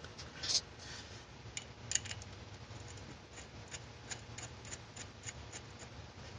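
Small metal clicks and a couple of short scrapes as studs are threaded into a water pump by hand, followed by a run of faint, evenly spaced ticks about three a second.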